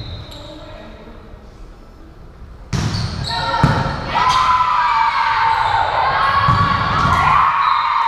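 Thuds of a ball in an echoing gym about three seconds in, then a group of voices shouting and cheering.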